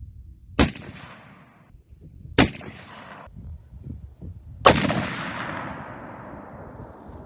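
Three heavy shots from a Bushmaster BA50 .50 BMG rifle, the first two about two seconds apart, the third the loudest with a long rolling echo that is cut off abruptly.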